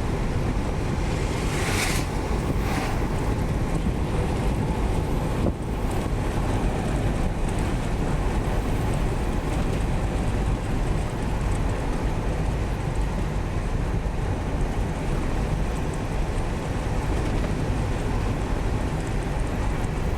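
Volkswagen truck on the road, heard from inside the cab: steady engine drone and road and wind noise. A short hiss comes about two seconds in.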